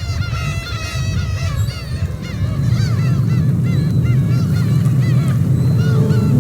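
A flock of birds calling: many short, overlapping, wavering calls over a steady low rumble.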